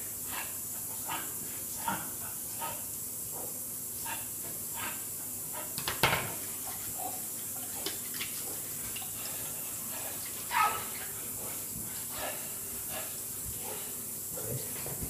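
Bathroom tap running steadily into a ceramic sink, with hands rinsed under the stream. Scattered short clicks and knocks come through, the loudest about six seconds in and another brief louder sound about ten and a half seconds in.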